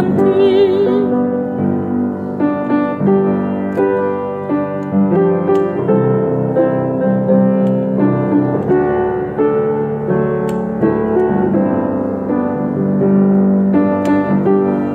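Background music: a piano playing a slow hymn accompaniment in changing chords, with the last sung note of a line, wavering with vibrato, fading out in the first second.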